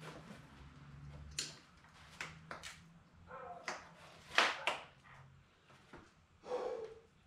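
Scattered metal knocks and clunks as a Yamaha Kodiak 700 ATV engine is worked out of its frame by hand, with a short rasp near the end.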